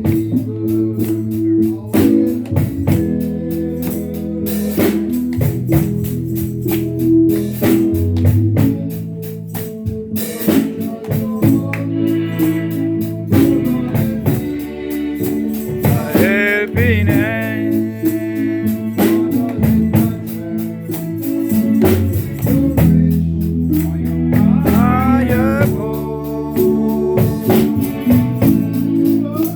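Live church worship music: a band with bass, keyboard or organ chords, drums and tambourine playing a steady beat, with a voice or lead instrument rising over it briefly twice.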